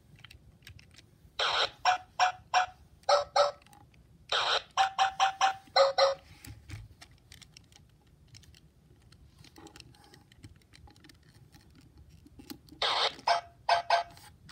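Hasbro I-Dog robot toy sounding groups of quick electronic beeps: a run about a second and a half in, another from about four to six seconds, and a last one near the end, with quiet gaps between.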